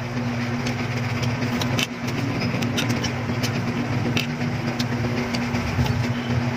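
A motor vehicle engine running at idle, a steady low hum, with scattered sharp crisp clicks from water apples (tambis) being bitten and chewed.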